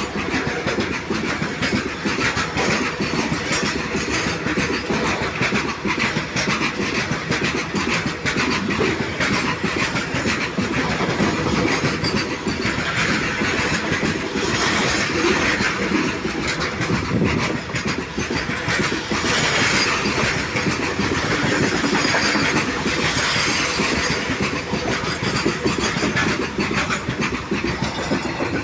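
A train hauled by a WAG-9HC electric locomotive running past, with a steady rumble and clatter of wheels over the rail joints.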